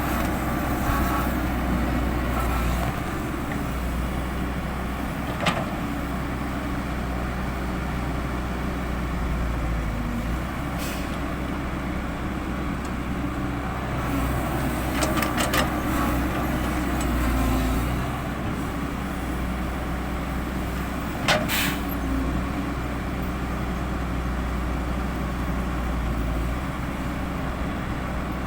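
Heavy diesel earthmoving machinery, an excavator and dump truck at work, running steadily, with a few sharp knocks about five, fifteen and twenty-one seconds in.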